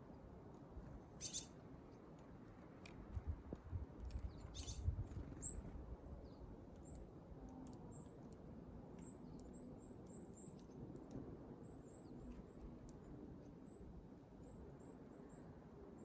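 Small wild birds giving short, very high, thin calls, repeated in quick runs from about five seconds in. Earlier there are two brief rushing sounds and a cluster of low thuds, the loudest moments.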